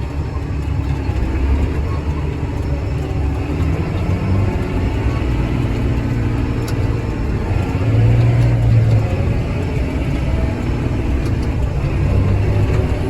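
Farm tractor engine running steadily under way, with its low note shifting as it is driven and shifted up through the gears; it is loudest about eight seconds in.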